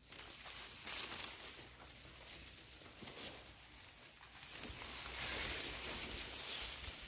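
Tall grass and leaves rustling, a soft hiss that swells about a second in and again for a longer stretch past the middle.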